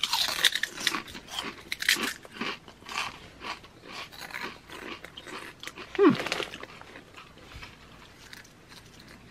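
Two people bite into and chew thick ridged Ruffles Double Crunch potato chips: loud, dense crunching right at the first bite, thinning to lighter chewing that dies away after about seven seconds. A brief voice sound about six seconds in.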